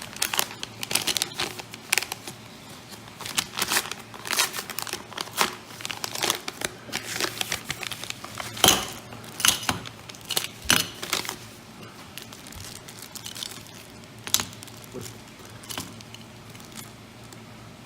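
Packaging crinkling and tearing as the small bags that the silver coins come in are handled and opened: a dense run of quick crackles and rustles that thins out after about twelve seconds.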